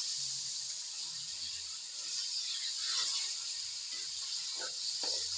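Chicken, tomatoes and peas frying in oil in a pan, a steady sizzling hiss, with a few brief sounds near the end.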